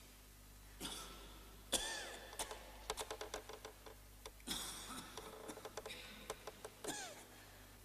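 Faint sounds from people sitting in church pews: scattered light clicks and knocks, with four short hissing bursts about a second or more apart.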